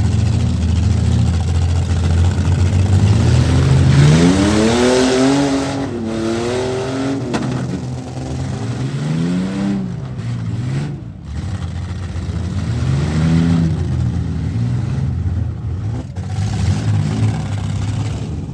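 Demolition derby car engines running, with a steady low rumble that gives way about three and a half seconds in to revving that climbs, drops and climbs again several times.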